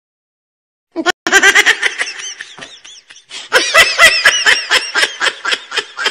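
High-pitched laughter starting about a second in, in two bouts of quick repeated "ha" pulses, the second bout fading out beat by beat.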